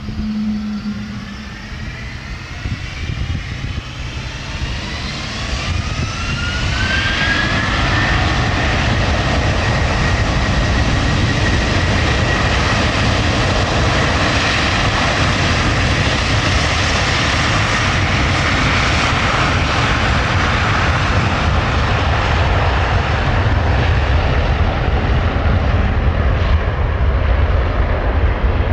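Twin-engine widebody airliner's jet engines spooling up to takeoff thrust. Several whines rise in pitch over the first eight seconds as the sound grows louder, then a steady high whine sits over a loud, even roar as the aircraft rolls down the runway.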